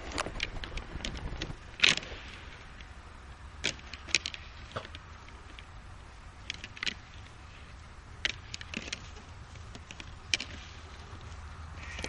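Antlers of two fallow deer bucks clashing as they fight, an irregular series of sharp clacks and rattles, the loudest about two seconds in.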